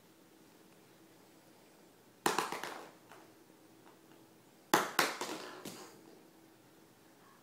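Hollow plastic Easter eggs clattering onto and bouncing across a wooden table: two bursts of quick knocks, one about two seconds in and a longer one a little past halfway.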